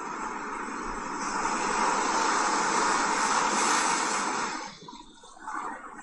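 Sea surf washing up a sandy beach: a steady rush of water that falls away briefly about five seconds in, then swells again.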